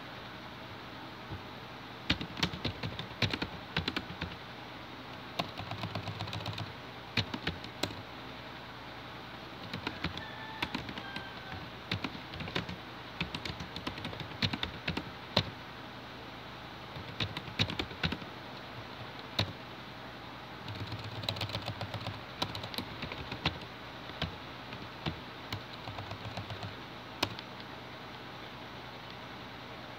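Typing on a computer keyboard: quick bursts of keystrokes broken by short pauses, with some keys struck harder than others.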